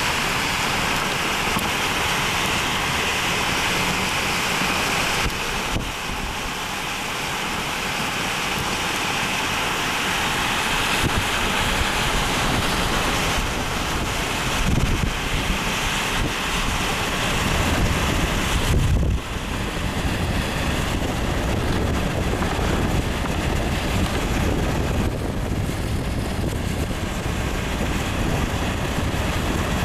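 Strong, gusty wind buffeting the microphone: a loud, steady rushing noise with heavier low rumbling gusts in the second half.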